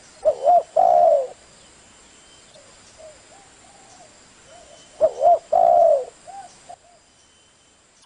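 Caged spotted doves (derkuku) cooing. One loud phrase comes right at the start and another about five seconds in, each two short arched notes followed by a longer falling coo. Fainter coos from other doves sound in between.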